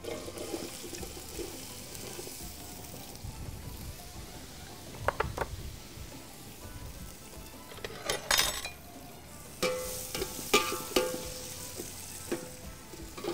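Diced potatoes frying in oil in a skillet and chopped onions starting to fry in a pot, a steady sizzle. Utensils scrape and clink against the pans several times as both are stirred, mostly in the second half.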